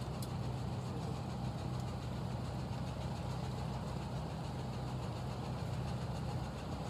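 An engine idling: a steady low hum that holds unchanged throughout.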